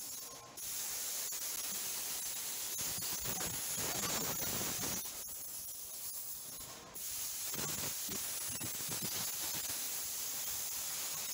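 Plasma cutter hissing steadily as its torch cuts through the trunk floor pan, making a rough cut to remove the old floor. The hiss stops about halfway, then starts again a second or so later.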